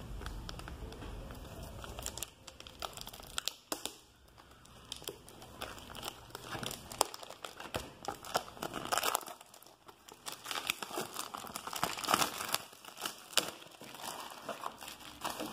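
Book packaging being crinkled and torn open by hand: irregular crackling and rustling with brief lulls.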